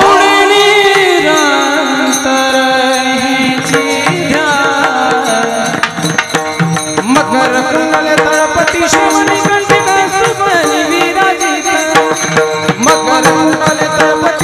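A male kirtankar singing a Marathi varkari devotional bhajan, holding a long note near the start. Hand drum and percussion accompany him and turn dense and rhythmic from about six seconds in.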